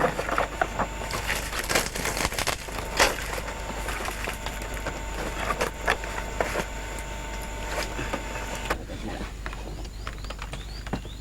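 Irregular cracks, snaps and clicks, with a faint steady high whine that cuts off sharply about nine seconds in.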